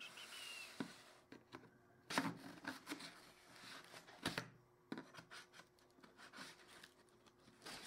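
A metal ruler is pried and scraped along the flap of a cardboard box to work it open. There is scattered scraping and rustling of cardboard, with a few sharp clicks and taps, the loudest about two seconds in and again about four seconds in.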